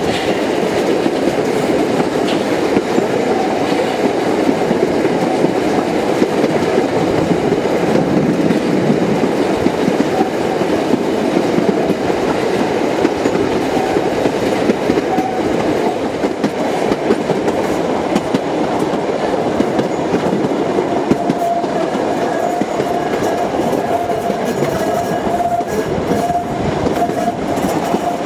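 Vintage passenger carriages of a steam-hauled heritage train rolling along the track, heard from on board: a steady rumble and rattle of wheels on rail. A thin steady high tone joins about two-thirds of the way through.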